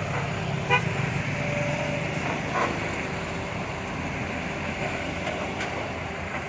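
Hitachi excavator's diesel engine running steadily, with a short horn toot about a second in.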